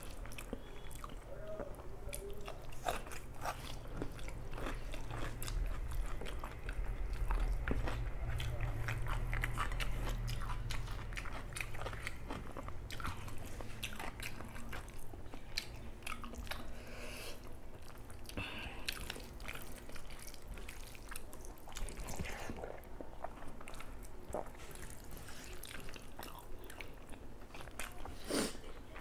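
Close-miked chewing and wet mouth-smacking of someone eating rice and meat curry by hand, with many small clicks. Fingers gather and mix rice on a banana leaf, and a low rumble runs through the middle.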